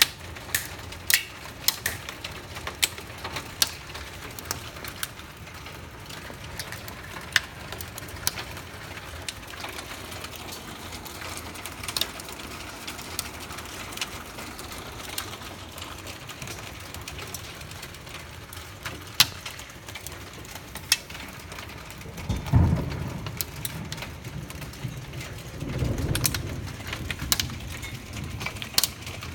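Small hailstones and rain falling on a wooden deck and the plastic lid of a deck box: a steady hiss of rain with scattered sharp ticks of hail striking. Two low rumbles come near the end.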